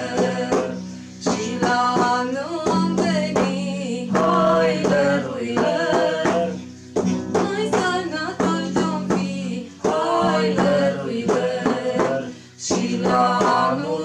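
Male and female voices singing a Romanian Christmas carol (colindă) together, to a strummed acoustic guitar.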